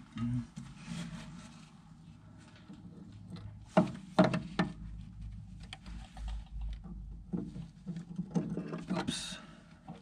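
Knocks and clicks of metal parts being handled on a dump-body tailgate latch linkage: three sharp knocks about four seconds in, lighter clicks later, and a short hiss near the end.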